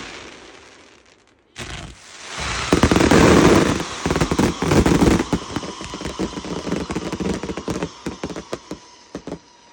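Fireworks: a sharp burst about a second and a half in swells into a dense, loud barrage of rapid cracks and bangs, then thins out to scattered pops near the end.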